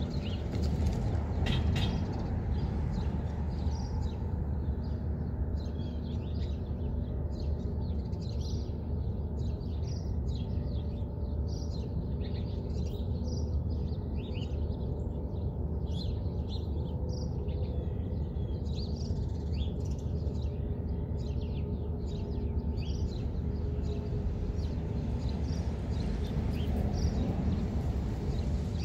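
Small birds chirping in many quick, short high calls, busiest through the middle, over a steady low background rumble.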